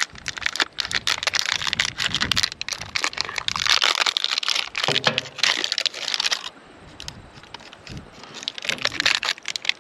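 Crinkling and crackling of plastic packaging as new engine big-end bearing shells are unwrapped, dense for about six and a half seconds and then quieter.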